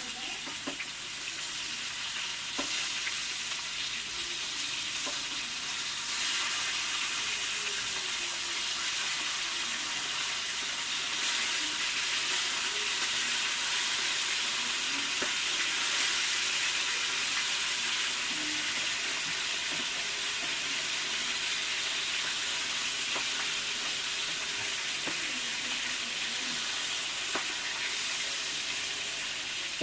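Chopped onions frying in hot oil in a pan: a steady sizzle, with a few faint clicks of stirring.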